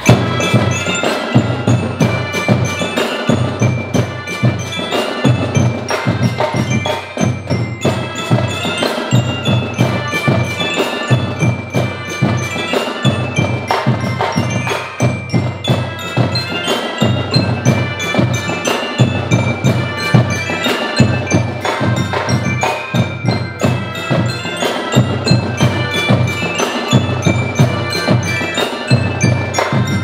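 School melodica marching band playing: melodicas and mallet-struck glockenspiels carry a fast tune over drums keeping a steady beat, with many sharp strikes throughout.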